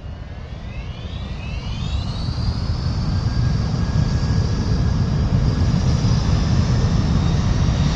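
A machine spinning up: a whine that rises in pitch over about the first two seconds and then holds steady, over a low rumble that grows louder.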